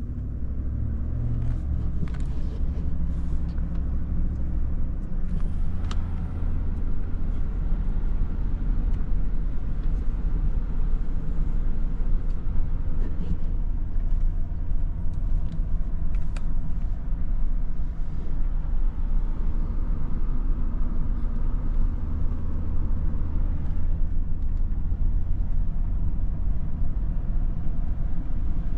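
A car driving along a park road, heard from inside the cabin: a steady low rumble of engine and tyres, with a couple of light clicks.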